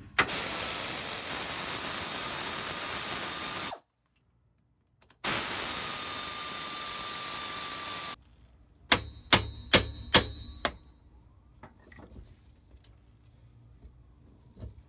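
Air ratchet running in two long runs of about three seconds each on the front driveshaft bolts, a steady airy hiss with a faint whine. A few seconds later come about half a dozen sharp metal clangs that ring.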